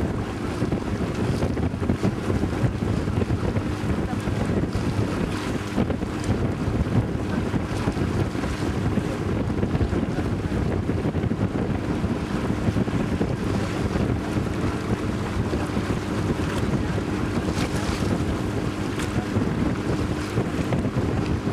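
Wind buffeting the microphone over the rush of choppy water against a moving boat, with the boat's motor droning steadily underneath.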